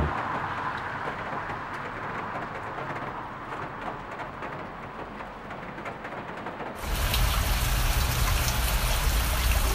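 Steady hiss of rain on a wet street. About seven seconds in it suddenly turns louder and fuller, with a low rumble beneath.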